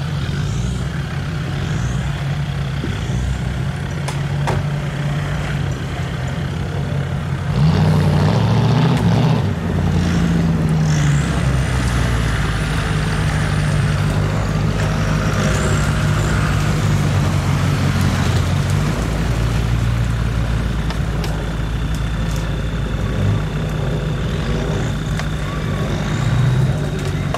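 Toyota Land Cruiser HDJ80's straight-six turbo diesel running under load off-road. The engine note rises and grows louder about a quarter of the way in, then eases back down later on.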